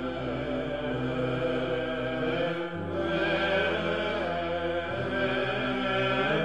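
Slow chanted music over a steady low held drone, the sustained notes changing about two and a half seconds in and again a little after five seconds.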